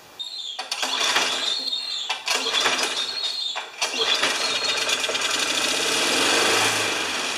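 Tecumseh 6.5 HP VLV mower engine being pulled over again and again with its recoil starter, in several pulls. It cranks but doesn't catch and run: the engine won't start.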